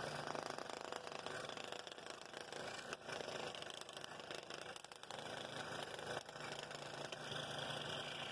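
Scroll saw running steadily, its blade cutting through a wooden bowl blank along a curved pattern line.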